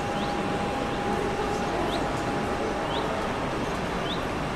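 Steady background rumble of distant engines, with a small bird chirping about once a second, each chirp a short rising note.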